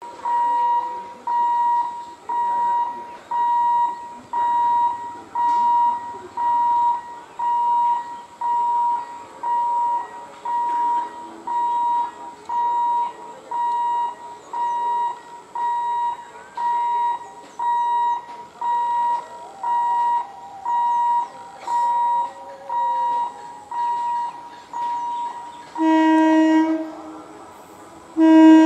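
Railway level crossing warning buzzer beeping steadily, one tone about once a second. Near the end the approaching electric multiple unit local train sounds its horn: a short blast, then a louder one starting just before the end, the loudest sound here.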